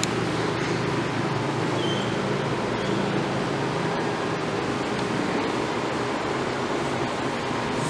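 Steady rushing background noise of a classroom, with a faint low hum underneath.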